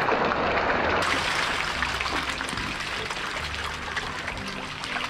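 Feeding frenzy of catfish in a round tarpaulin tank: a dense, crackling patter of splashes as the fish thrash at the surface for feed, slowly easing off.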